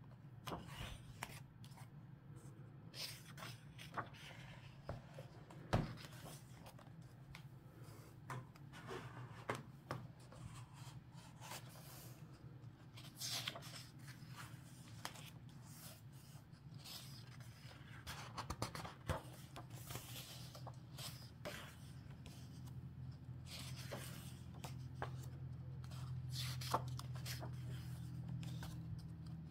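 Paper pages of a large book being turned and handled: repeated short rustles and soft flaps at irregular intervals. A steady low hum lies underneath and grows slightly louder near the end.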